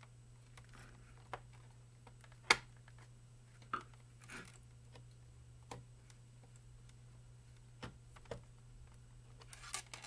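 Scattered small clicks and taps from the plastic memory-compartment cover of an HP Compaq 6710b laptop being pressed into place and screwed down with a screwdriver. One sharp click about two and a half seconds in is the loudest.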